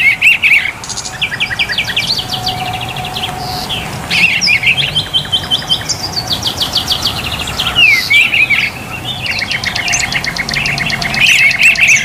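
Caged songbird singing a varied song of rapid trills and quickly repeated high whistled notes, with a down-slurred whistle about eight seconds in and a loud fast trill near the end.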